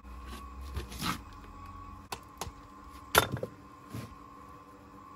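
Several sharp clicks and knocks of stone and hand tools during stone wall building, the loudest about three seconds in, over a faint steady hum.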